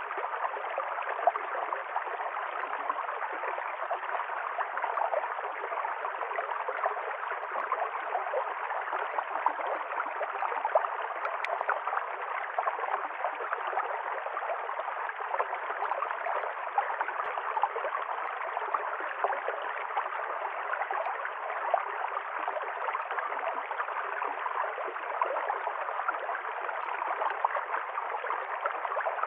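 A stream's water running steadily over stones, with constant gurgling and small splashes.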